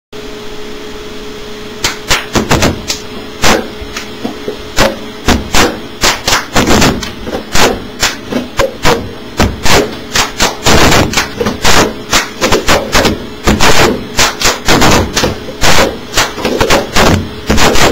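Several people playing a cup rhythm game: paper cups knocked and slapped down on a tabletop, mixed with hand claps, in a fast, uneven run of sharp hits that starts about two seconds in.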